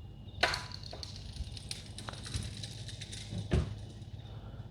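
Someone walking, with two sharp knocks about three seconds apart over a low steady hum.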